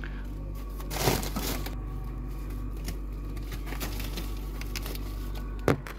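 Steady low hum of a freezer with the door open while plastic-wrapped foam trays of raw chicken are slid in, with a rustling scrape about a second in. A sharp knock comes near the end and the hum cuts off with it.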